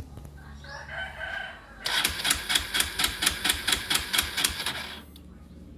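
Kawasaki D-Tracker 125 single-cylinder engine turned over on its electric starter without firing: a rapid clicking rattle, about five beats a second, lasting some three seconds. This is a crank attempt on a bike that won't start.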